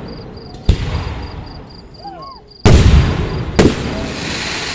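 Fireworks bursting overhead: three sharp booms, one about a second in, the loudest near three seconds and another a second after it. Each trails off in a long rolling rumble.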